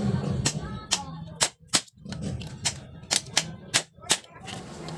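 Hammer striking a nail held in vise-grip pliers to drive the rivets out of a spin-dryer motor's aluminium end housing: a run of about ten sharp metal taps, two to three a second, with a short pause about two seconds in.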